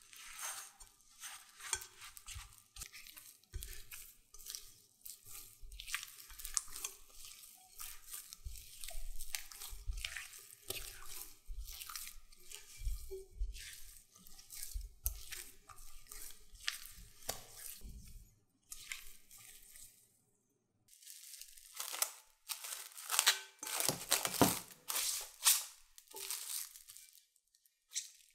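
Spatula and hands working a sticky yeasted dough in a glass bowl, with irregular squishing, slapping and scraping against the glass. After a short break, plastic cling wrap crinkles as it is pulled and stretched over the bowl, the loudest part.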